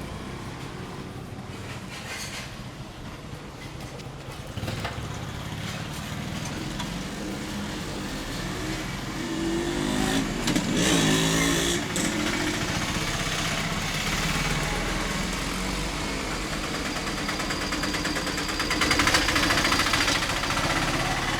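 Street traffic with motor vehicles, likely motorcycles, passing. It is loudest about halfway through, with an engine note that rises and falls, and swells again near the end.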